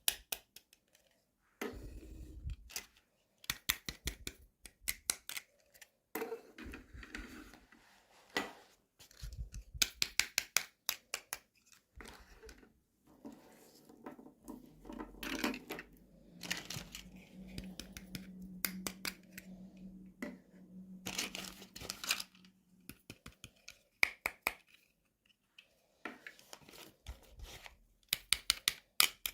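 Toy packaging being opened and handled: runs of sharp clicks and snips with rustling and crinkling in between, and a faint low hum for several seconds in the middle.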